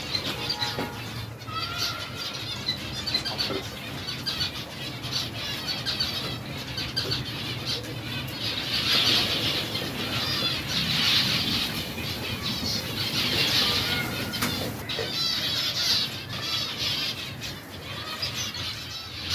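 A colony of aviary finches chirping and chattering continuously, many small high calls overlapping, with wings fluttering as birds flit about. The chatter swells in louder bursts several times.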